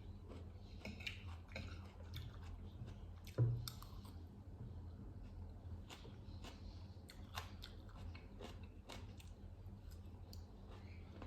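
A person chewing and crunching food close to the microphone, many small wet clicks and crunches, with one louder thump about three and a half seconds in. A steady low hum runs underneath.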